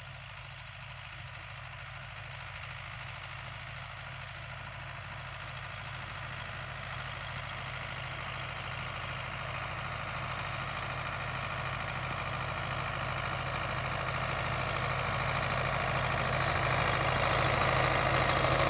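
MTZ-80 tractor's four-cylinder diesel engine working steadily under load, pulling a seed drill. It grows steadily louder as the tractor approaches.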